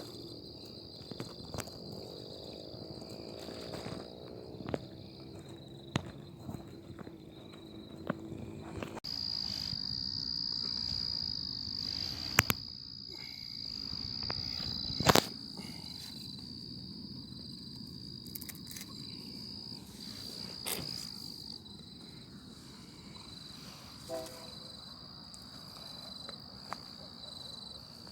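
Night insects, crickets among them, trilling in a steady high-pitched chorus that swells for a stretch in the middle. A few sharp clicks cut through, the loudest about fifteen seconds in.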